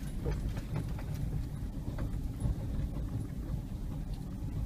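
Car driving over a gravel campground track, heard from inside the cabin: a steady low rumble of engine and tyres, with a few faint clicks and rattles.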